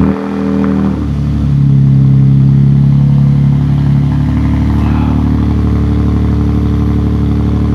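A 2022 Toyota Tundra's twin-turbo V6 running just after its first start through a new Carven cat-back exhaust with a straight-through muffler. It is pretty loud, and the idle note changes and settles to a steady idle about four seconds in.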